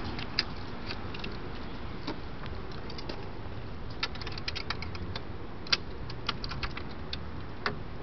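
Wind rumbling on the microphone, overlaid with scattered light clicks and taps from handling the aluminium frames of folding solar panels, with a cluster of them about halfway through.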